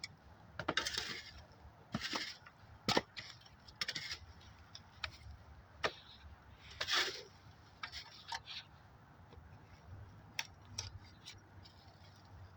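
Digging through potting soil in a plastic garden container: irregular scraping and rustling strokes with scattered sharp clicks and knocks.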